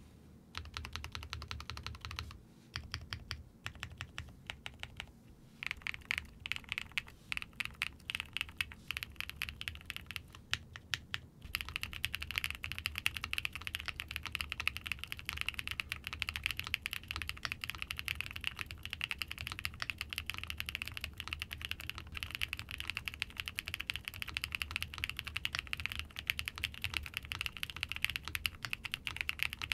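Typing on a Mykeyclub Jris80, an 80% aluminium gasket-mount custom keyboard built with full foam and a foam reinforcement plate, picked up by a dynamic mic. Quick strings of keystrokes with a few short pauses in the first part, then a fast, unbroken run of clacks from about halfway on.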